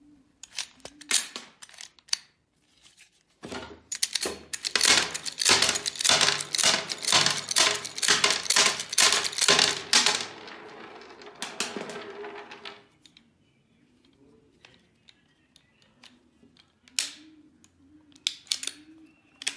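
Glock 19 pistol's slide racked back and released in quick succession, sharp metallic clacks two or three a second, ejecting live 9mm cartridges that clatter onto a wooden table. It stops after several seconds, with two more single clacks near the end.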